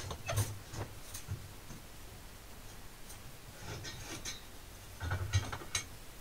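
Light metal clicks and knocks from steel workpieces and tools being handled at a bench vise. A few come in the first second or so, then two clusters around four and five seconds, the loudest just after five seconds. A faint steady low hum sits underneath.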